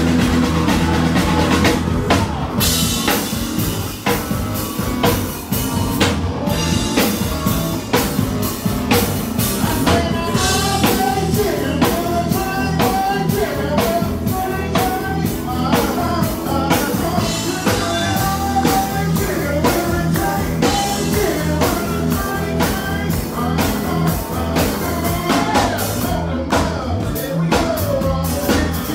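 Live band playing a country-rock song: drum kit keeping a steady beat, with guitars and bass.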